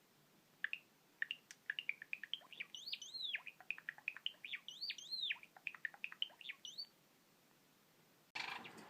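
Java sparrow singing: a run of quick clicking notes with two longer arching whistles woven in, lasting about six seconds.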